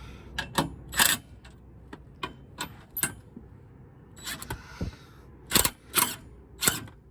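Scattered sharp metallic clicks and clinks of hand tools and hitch bolts being handled under a car, about ten separate knocks with no steady motor sound.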